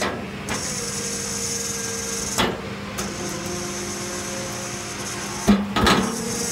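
Chain-driven steel log deck running with a steady mechanical hum, and wooden knocks as logs shift and roll on it. The two loudest knocks come close together near the end.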